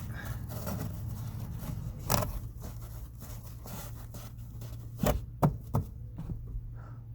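Hand work on a car's interior: a few sharp knocks and scrapes of parts being handled, with a cluster of three knocks about five seconds in, over a steady low hum.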